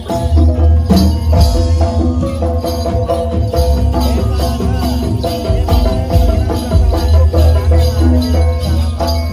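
Live East Javanese jaranan music: a gamelan-style ensemble playing with dense drumming and jingling bells over a steady low bass.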